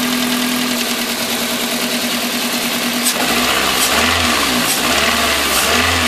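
Toyota 1ZZ-FE 1.8-litre four-cylinder engine idling with a rod knock from worn connecting rod bearings. About three seconds in, a deeper low rumble joins, along with a few sharp clicks.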